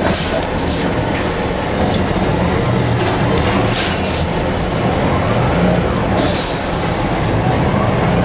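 Madill 120 grapple yarder running steadily, heard from inside its cab, with short sharp hisses of air several times, about a second in, near four seconds and past six seconds.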